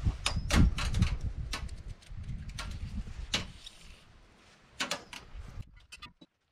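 Handling noise from gloved hands working a nylon starter rope for a chainsaw's recoil starter: scattered clicks and light knocks with some rustling, and a low rumble in the first couple of seconds. The clicks thin out and grow faint near the end.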